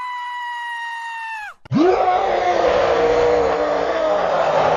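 Two screams from a cartoon character scream compilation. The first is a high-pitched held scream whose pitch sinks slightly before it cuts off suddenly about a second and a half in. Right after it comes a harsh, rough, lower scream that swoops up in pitch and then holds.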